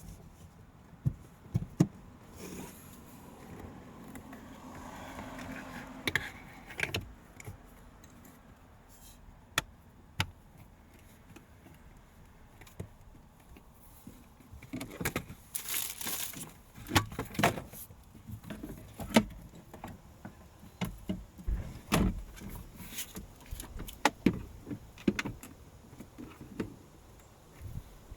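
Hands working the cabin air filter housing of a 2018 Chevrolet Volt: scattered sharp plastic clicks and knocks with stretches of scraping and rustling, including a louder scrape about halfway through, as the new filter is pushed into place and the parts are refitted.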